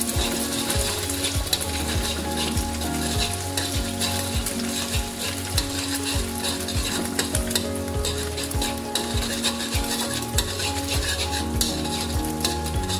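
Beaten egg sizzling in hot oil in a wok while a metal spoon stirs and scrapes it, with frequent clicks of the spoon against the pan.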